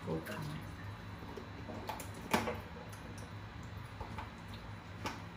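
Raw chicken offal being handled in a plastic colander at a kitchen sink: soft squishes and light clicks, with one sharper click about two seconds in. A steady low hum runs underneath.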